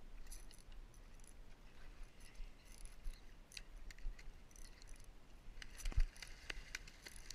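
Small scattered metallic clicks and ticks of a spinning reel and rod being worked during a retrieve, then a sharp splash about six seconds in as a fish strikes the lure at the surface.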